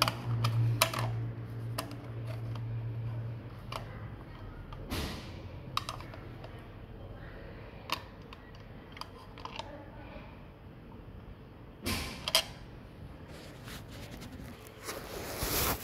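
Handling sounds of a plastic Ethernet wall faceplate being pressed onto its box and screwed down: scattered small clicks, taps and scrapes, with a low hum in the first few seconds and a louder rustle near the end.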